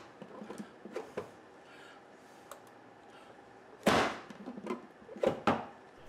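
Plastic Freshware vegetable chopper being worked on a wooden table to dice a bell pepper: a few faint clicks, then a loud sharp clack about four seconds in and two smaller clacks a second later as the lid is pushed down and handled.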